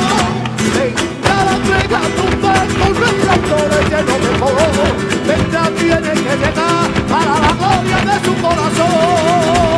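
Flamenco song with acoustic guitar strumming under a singer's long, wavering held notes.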